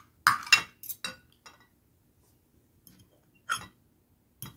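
Metal spoon and fork clinking and scraping against a plate during eating: a quick cluster of clinks in the first second and a half, then single clinks about three and a half seconds in and near the end.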